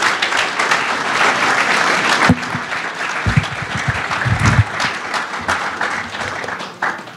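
Audience applauding, thinning out near the end, with a couple of dull low thumps about three and four seconds in.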